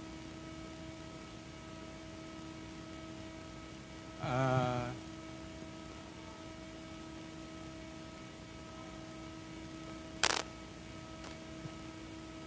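Steady electrical hum from a live band's PA system, with several fixed tones in it. A short voice call comes about four seconds in, and a sharp click a little after ten seconds in.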